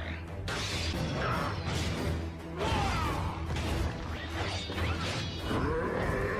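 Animated robot battle sound effects: a run of crashes and hard impacts with whooshes, over music with a steady low beat.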